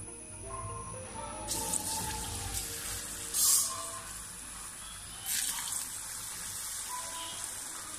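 Unnakkaya (banana dumplings) deep-frying in hot oil in a kadai: the oil starts sizzling about a second and a half in as a dumpling goes in, with louder spurts of spitting about three and a half and five and a half seconds in.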